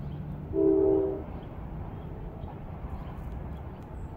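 A short blast of a freight locomotive's multi-note air horn, sounding a chord for under a second, from Norfolk Southern #4162 approaching. A low steady rumble runs underneath.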